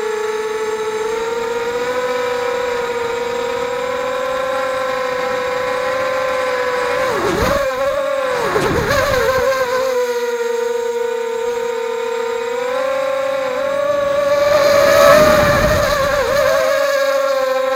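FPV acro quadcopter's motors and propellers whining steadily at one pitch. The pitch dips sharply and climbs back several times about seven to nine seconds in, then rises and falls again near fifteen seconds, as the throttle is chopped and punched during acro moves.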